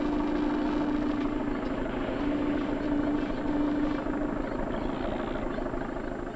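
Steady engine drone of harbour ship machinery with a held low hum, fading over the last couple of seconds.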